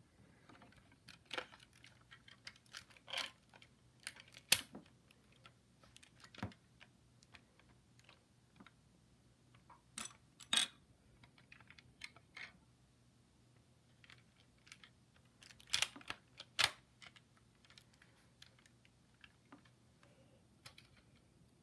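Scattered plastic clicks and clacks of a rubber-band LEGO bolt-action pistol being handled and its mechanism worked. They come in small groups a few seconds apart, with sharper paired clacks about ten and sixteen seconds in.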